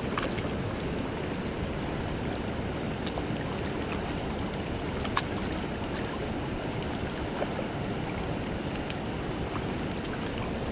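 Steady rush of river water flowing below a spillway, with a faint click about five seconds in.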